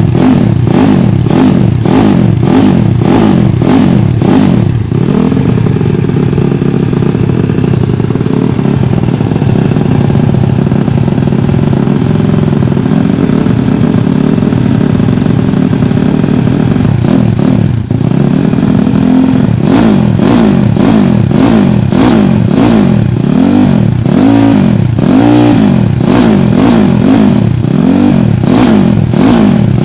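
Bored-up 160cc Yamaha Vega ZR motorcycle engine revving through a C2speed 'silent'-type prototype exhaust: quick repeated throttle blips, then held at a steady speed for about twelve seconds, a brief dip, and more blipping near the end. The freshly built engine still feels heavy and needs running in.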